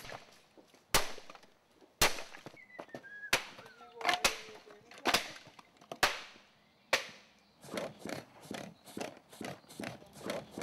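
A series of loud, sharp cracks, roughly one a second, then lighter, quicker clicks near the end.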